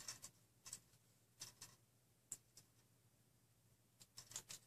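Faint rustles and light clicks of hands handling loose hookup wires and small black plastic connector parts on a tabletop: short, scattered ticks, with a quick cluster of them near the end.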